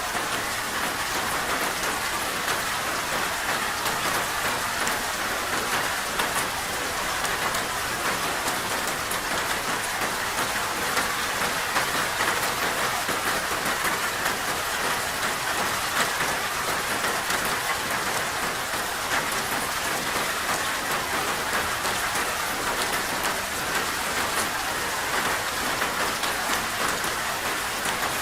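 Steady heavy rain falling on a surface, a dense even hiss with scattered drop ticks.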